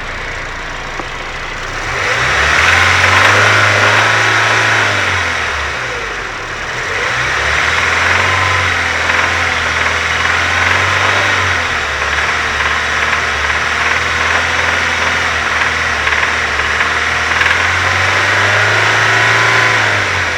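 Nissan SR20DET turbocharged four-cylinder engine running, its revs raised and held three times and settling back between, with an abnormal noise running through it. The owner finds this noise comes back when the adjustment is set at its marked point and goes away when it is turned all the way down.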